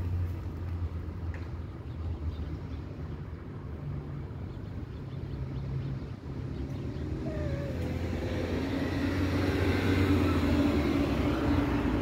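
A motor vehicle's engine running with a steady low hum. A passing vehicle grows louder over the last few seconds.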